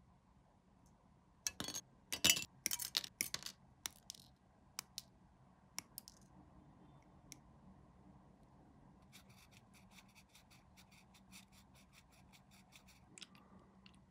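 Small hand-work sounds of plastic model parts and hobby tools: a cluster of sharp clicks and scrapes in the first few seconds, then a run of faint, quick ticks, about five a second, near the end.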